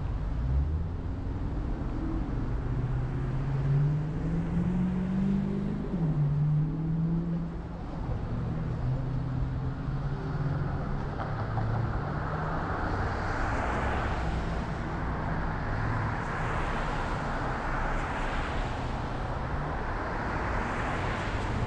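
Car engine and tyre road noise while driving; the engine note rises as the car speeds up, then drops back about six seconds in. From about halfway, road noise grows louder and swells several times.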